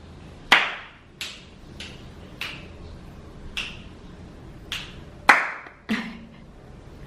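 Slow hand clapping: about eight single claps at roughly one every half second to second. The loudest come about half a second in and about five seconds in.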